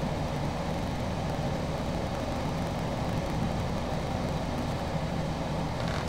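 Window air conditioner running on its fan only, a steady whir of moving air with a low hum, the compressor not yet running.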